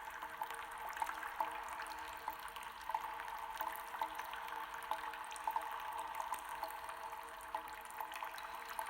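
Water dripping from stalactites in a cave: many drops falling at irregular intervals, several a second, each with an echoing ring.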